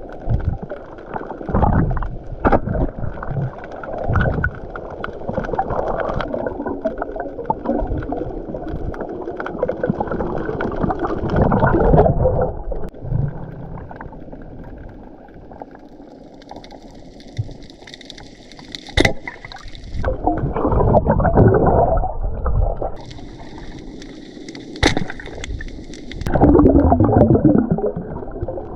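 Water gurgling and bubbling in repeated surges around a diver's camera in the sea, with a few sharp clicks.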